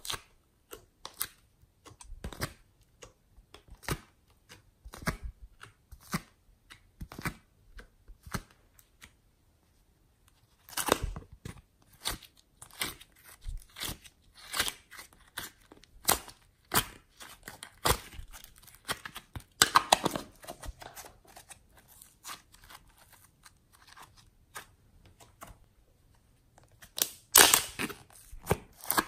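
Soft clay and slime being squeezed, pulled apart and poked by hand, giving a string of short sticky clicks and crackles. Denser bursts of crackling come about eleven and twenty seconds in, and the loudest near the end.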